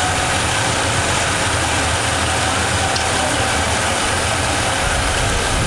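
Diamond wire saw running through concrete: the cutting wire whirring over its guide pulleys as a steady mechanical noise, with a low hum that swells near the end.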